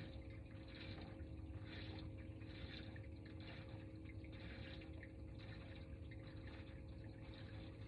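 Small waves lapping and splashing softly against the hull of a bass boat, over a steady low hum.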